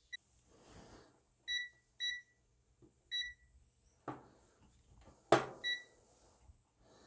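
ZOYI ZT109 digital multimeter giving five short high beeps as its buttons are pressed and its rotary dial turned, its range mode switching from manual to auto. Two sharp knocks as the meter and test leads are handled, the louder a little past five seconds in.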